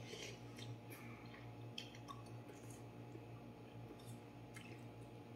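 Faint chewing and wet mouth sounds of a person eating a mouthful of noodles, with a few small clicks.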